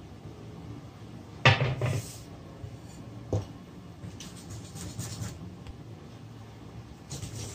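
A metal sieve knocking against a glass mixing bowl a few times while flour is sifted, then a wire whisk beating cake batter in the glass bowl with quick repeated strokes.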